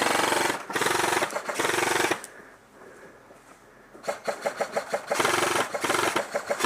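Airsoft gun firing fully automatic: three short bursts of rapid shots in quick succession, a lull of about two seconds, then a quicker string of separate shots running into two more bursts.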